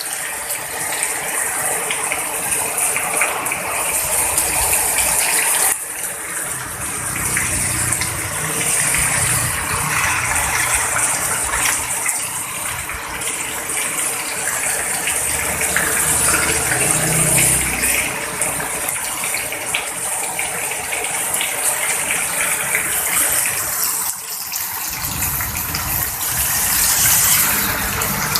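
Heavy rain pouring down steadily in a windstorm, with a dense rushing hiss and gusts of wind rumbling.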